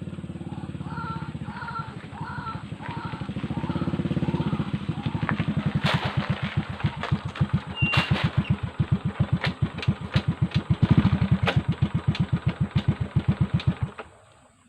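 A small engine, sounding like a motorcycle, running with a steady hum that turns into separate slow beats of about four a second. It cuts off abruptly near the end, with a few sharp clicks over it.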